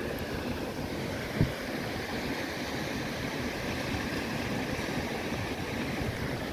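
Surf breaking and washing up a sandy beach, with a steady low rumble of wind. A single brief thump comes about a second and a half in.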